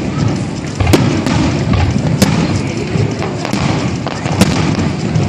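Fireworks bursting: sharp bangs about a second in, a little after two seconds and near the end, with fainter cracks between, over a continuous low rumble.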